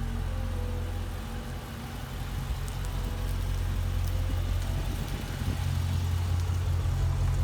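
Dodge Challenger 392 Scat Pack's 6.4-litre HEMI V8 idling steadily.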